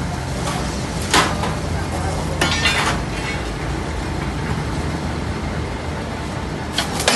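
Electric rebar cutting/bending machine running with a steady motor hum while working a 25 mm steel bar, with sharp metallic clinks and a short rattle of steel about a second in, around two and a half seconds in, and again near the end.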